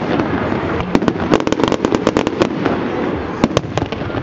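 Aerial firework shells bursting in a display: a run of sharp bangs and crackles, with a rapid volley from about one to two and a half seconds in and a few single bangs near the end.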